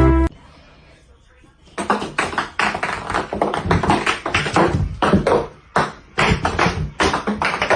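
Rapid, uneven tapping and clicking, starting about two seconds in and running on with a brief pause near six seconds.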